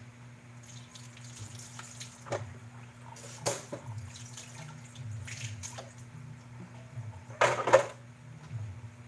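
Mushrooms and fish simmering in their own liquid in a wok over a gas flame, bubbling with small pops. There is a louder sputter about three and a half seconds in and a stronger one about seven and a half seconds in.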